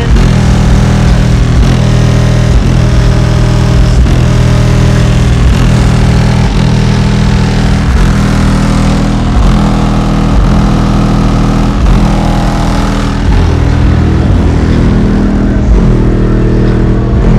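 Bass-heavy music played very loud through a car's trunk-mounted subwoofer system: three Skar Audio VVX 10-inch subwoofers driven by a Skar SK1500 bass amplifier, pumping a deep, steady bass line with a repeating beat.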